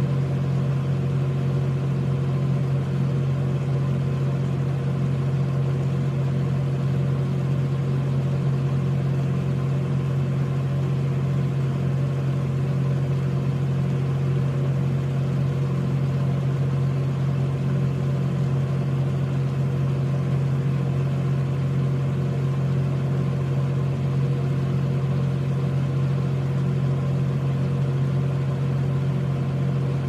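Fishing boat engine idling, a steady low hum that holds the same speed throughout.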